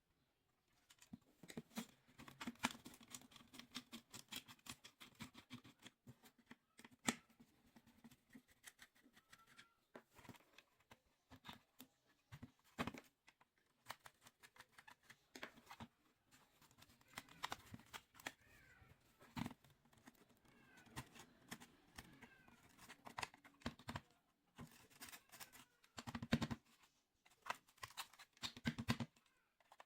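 Quiet hand-work on a small model vehicle: scattered sharp clicks and short scrapes of small parts and tools, with a few brief high squeaks in the middle part.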